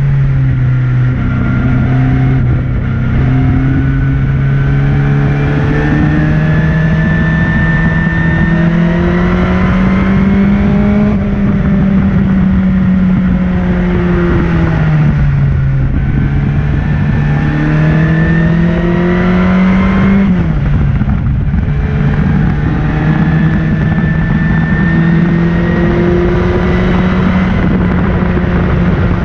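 Maserati Birdcage race car engine at high revs, heard from the cockpit: its pitch climbs steadily through the gears, dropping sharply at an upshift about a second in and another about twenty seconds in, with a slower dip and rise in the middle. Wind and road noise run under the engine throughout.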